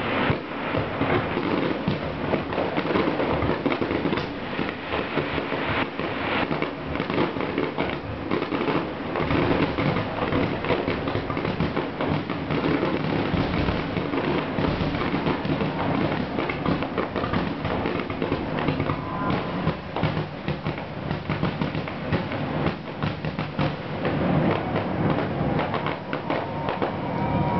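Aerial fireworks going off in a dense, unbroken barrage, shell bursts crowding one on another.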